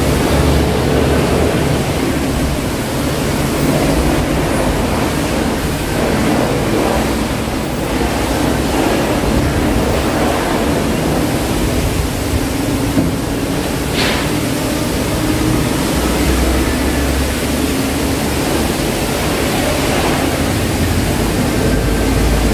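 Steady rushing noise of a car wash bay, even and unbroken, with a low rumble under it and a brief sharp click about 14 seconds in.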